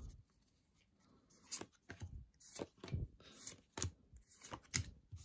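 Pokémon trading cards being slid and flicked one behind another in the hands: a string of short, light snaps, about two a second, starting about a second in.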